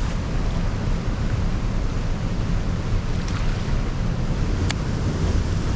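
Wind buffeting the microphone, a steady low rumble, with one sharp click about three-quarters of the way through.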